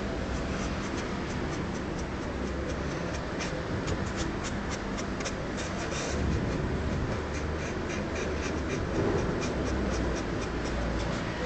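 A pen scratching across the surface of a mask in many short, irregular strokes, over a steady low rumble.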